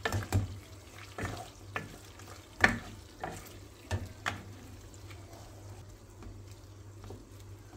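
A wooden spoon stirs beef cubes in their juices in a nonstick pot, knocking and scraping against the pot in an irregular string of clicks over a faint sizzle. The knocks thin out after about four seconds.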